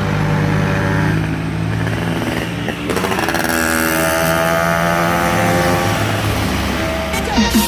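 Bus engine pulling up a steep incline: a steady low engine note, a brief dip about three seconds in, then the engine note climbs slowly as it pulls.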